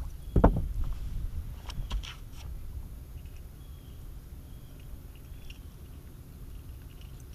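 A single heavy thump on the bass boat's deck about half a second in, then a few light clicks, followed by a low steady rumble of wind and water.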